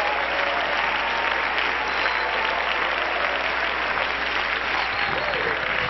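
A large congregation clapping steadily, with a few voices calling out over the applause near the end.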